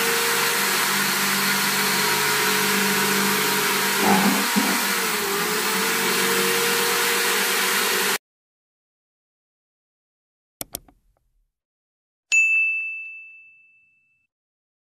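Electric drill running steadily as it bores through a plastic plant pot, its pitch dipping and recovering about four seconds in, then cutting off suddenly. A few seconds later come two quick clicks and a single bell ding that rings out and fades.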